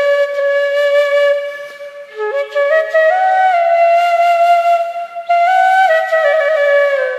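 Background music: a slow flute melody of long held notes that step up and down in pitch, with two notes sounding together in the middle.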